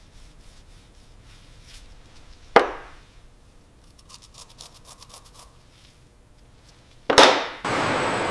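Factory machinery: a sharp metallic-sounding knock, a patch of faint rapid ticking, then a second loud knock, and near the end a steady loud hiss sets in.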